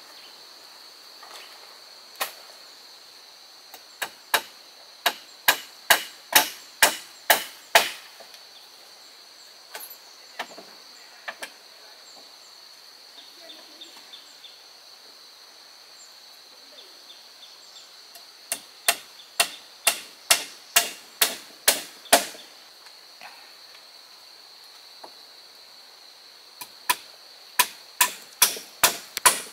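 Repeated blows of a hand tool on wood, about two to three a second, in three runs of several seconds with pauses between. A steady high-pitched insect drone runs underneath.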